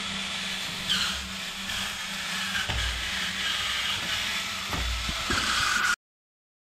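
Small DC gear motors of a model vehicle running with a steady hum and hiss, with dull knocks about three and five seconds in. The sound cuts off suddenly about six seconds in.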